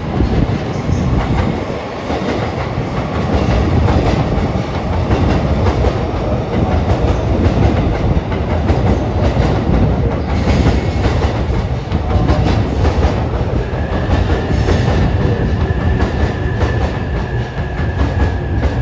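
Electric train running along the platform, its wheels clattering over the rail joints with a heavy rumble. A thin, steady high squeal joins in for the last few seconds.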